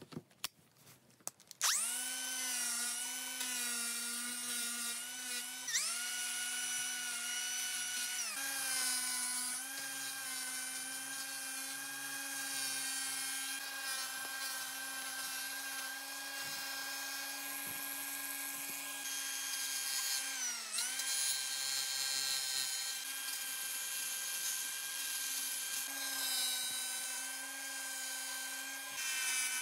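A battery clicks into a Milwaukee M18 CAG125 cordless angle grinder, which starts up about two seconds in. It then runs with a steady high whine while its abrasive disc grinds wood, the pitch dipping briefly a few times as it is pressed into the work.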